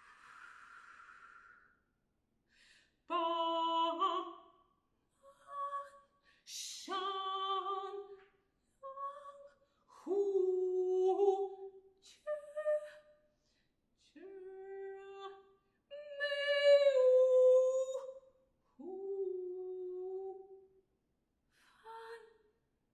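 Solo alto voice singing unaccompanied in short, separate sung notes and syllables with silent pauses between them. A breathy hiss at the start and a sharp hissing consonant about six and a half seconds in. The loudest is a longer held note a little past the middle that slides slightly down.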